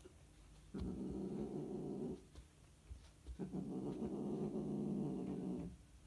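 Scottish fold cats mating, with two long, low growling calls of about two seconds each and a short quiet gap between them.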